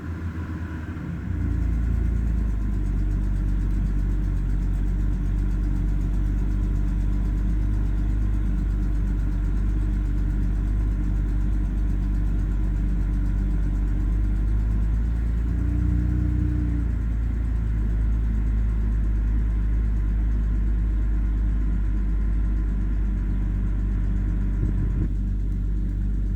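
BMW N52B25 2.5-litre straight-six idling, with a brief change in its note around the middle. The idle is rough and the rpm unstable, with a ticking noise that the owner has not been able to cure.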